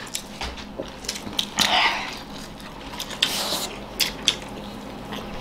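Several people eating rice with their hands: chewing, with small mouth clicks and smacks and the soft squish of food being mixed on plates, plus a couple of short airy breaths.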